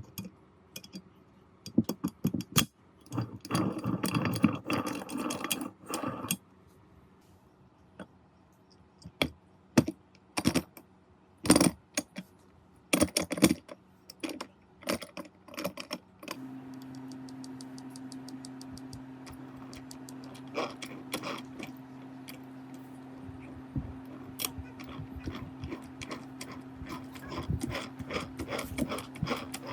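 Metal parts clicking and knocking as they are handled and worked on. About halfway through, a small motor starts and runs with a steady low hum while the clicking goes on.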